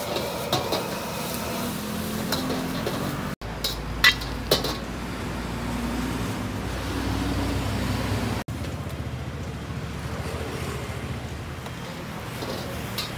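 Metal wok ladle clanking and scraping against a carbon-steel wok, with a few sharp strikes about four seconds in, over the steady roar of a gas wok burner.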